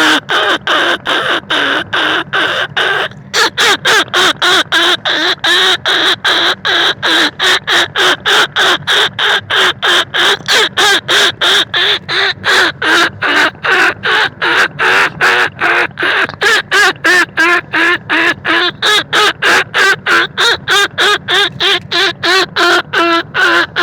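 Rat-luring call used to draw field rats and bandicoot rats: short squeaky calls repeated rapidly, about three a second, with one brief pause about three seconds in.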